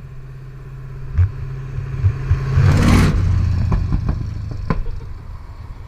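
A vehicle engine running at low speed close by, with a louder rush of passing-vehicle noise that builds and peaks about halfway through, and a few sharp clicks.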